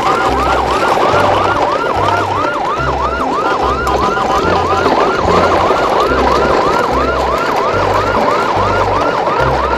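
Electronic siren yelping, a quick rising whoop repeated about three times a second, over a low pulsing bass line.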